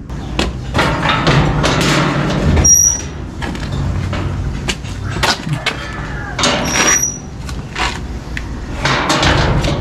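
Clanks and rattles of a rusty steel gate being handled and pushed open, its latch knocking, over a steady outdoor rumble, with two short high squeaks.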